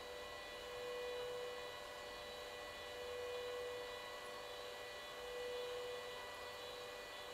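Electric hum and whine from a kinetic light installation's rotating fluorescent-lamp mounts, a steady mix of tones in which the strongest rises and falls about every two seconds as the lamps spin.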